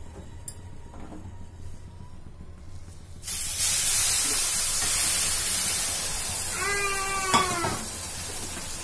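Hot sugar syrup poured into a kadhai of wheat flour roasted dark brown in ghee, hissing and sizzling loudly as it hits the hot flour. It starts about three seconds in and eases off gradually. A brief high-pitched cry sounds near the end.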